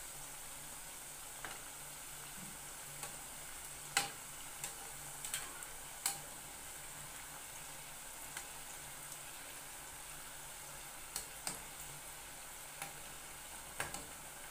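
Mandazi dough pieces deep-frying in hot oil in a metal pot: a steady sizzle, with a few sharp clicks as a metal slotted spatula knocks the pot while turning them.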